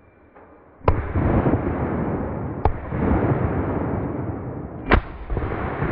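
Three sharp shotgun shots, about a second in, near the middle and about five seconds in; the first and last are the loudest. A loud rushing noise fills the gaps between them.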